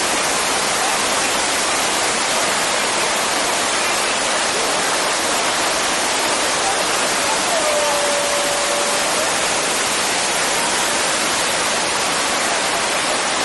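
Water rushing steadily down a terraced waterfall, cascading over stepped rock ledges in an even, unbroken roar.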